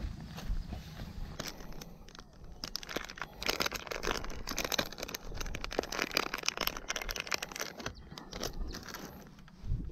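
Plastic fishing-lure packet crinkling and crackling as it is handled and torn open, a dense run of rapid crackles that is thickest in the middle and thins out near the end.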